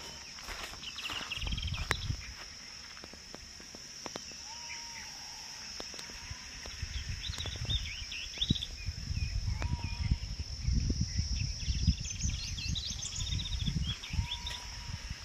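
Birds calling outdoors, with quick chirping notes and a short whistled note repeated every few seconds, over a steady high insect drone. Low rumbles on the microphone come and go, mostly in the second half.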